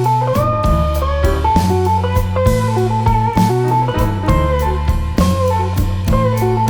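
Background music: a blues-style guitar melody with bending notes over a steady bass line and drum beat.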